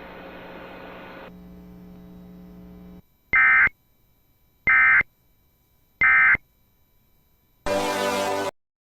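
Emergency Alert System end-of-message code: three short, loud bursts of warbling digital data tones, evenly spaced about a second and a half apart, marking the end of the alert. A faint broadcast hum comes before them, and a brief buzzing tone near the end.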